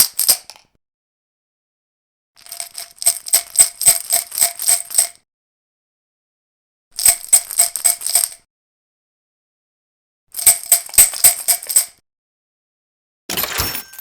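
Coins clinking and jingling together in short bursts, each a quick run of bright metallic clinks, heard three times in full. Near the end comes a brief, rougher rustling burst.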